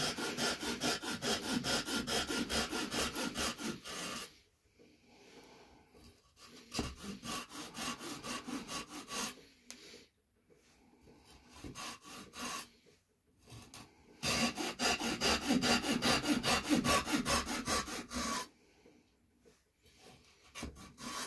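Folding hand saw cutting a relief cut across the neck of a green maple spoon blank, in quick back-and-forth strokes. The sawing comes in two runs, stopping about four seconds in and starting again after a pause of about ten seconds with fainter, scattered strokes.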